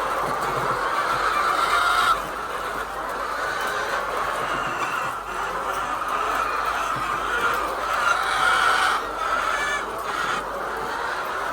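A flock of laying hens clucking and calling together in a dense, steady chorus of many overlapping voices.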